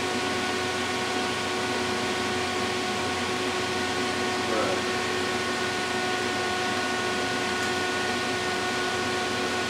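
Steady fan-like background hiss with a few faint steady tones, even in level throughout; a brief low mutter about four and a half seconds in.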